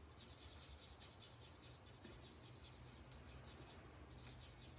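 Faint scratching of a Stampin' Blends alcohol marker tip on cardstock, in quick repeated strokes, as a stamped image is coloured in small circles.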